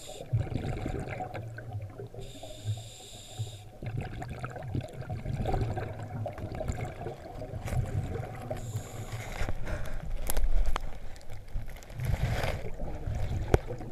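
Underwater sound of a dive: a constant muffled low rumble with water gurgling and small clicks, and the diver's breathing, with a steady hiss of an in-breath twice, about two seconds in and again near nine seconds.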